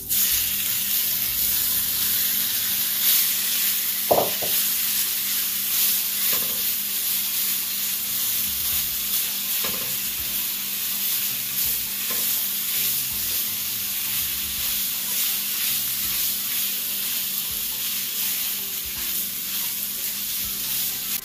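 Seasoned chicken pieces frying in hot coconut oil, a steady loud sizzle that starts suddenly as the first pieces hit the pan. A few brief knocks are heard as more pieces are laid in.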